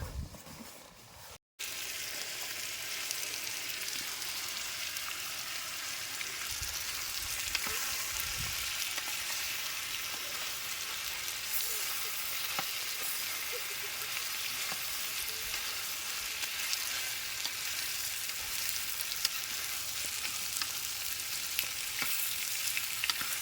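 Food sizzling and crackling in a hot pan: a steady hiss with fine crackles that starts after a brief cut about a second and a half in.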